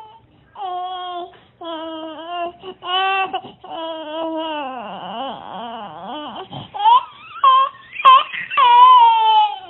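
Infant crying: a run of wails about a second each, growing louder and higher-pitched in the last few seconds.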